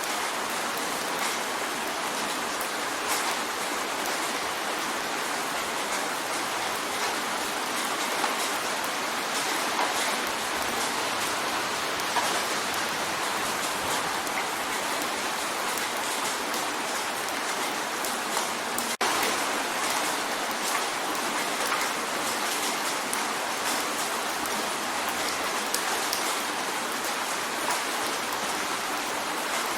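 Rain drumming steadily on a window pane: a dense, even hiss dotted with small taps of single drops, with one split-second dip about two-thirds of the way through.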